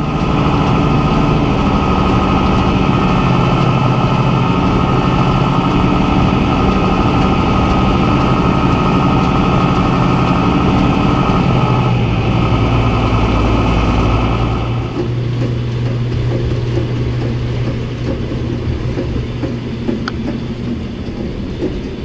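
Farm machinery running steadily with a loud, even hum made of several held tones. The sound shifts about twelve seconds in, then drops in level about fifteen seconds in and carries on lower.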